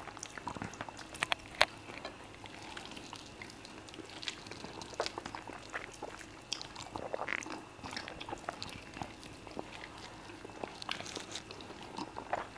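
Two people eating fufu with peanut spinach soup by hand: soft, wet chewing and lip-smacking mouth sounds with scattered small clicks, the loudest a sharp click about one and a half seconds in.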